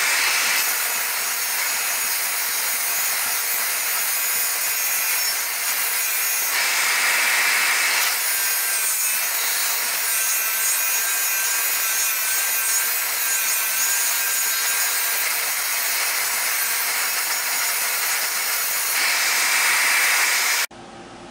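A DeWalt bench grinder running with a cast metal seat-adjuster cable runner held against its spinning wheel and polished, a steady hiss of metal on the wheel over the motor's hum. It gets a little louder twice, then cuts off suddenly near the end.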